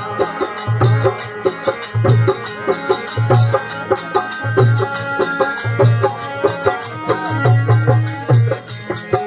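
Instrumental passage of a Rajasthani folk devotional song (bhajan): a melody line over a quick, even percussion pattern, with a deep drum stroke about once a second.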